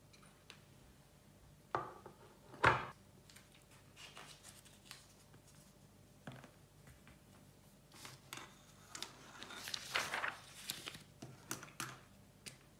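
Light handling noises: scattered taps and knocks, the loudest about two and a half seconds in, and a longer stretch of rustling and scraping around ten seconds in.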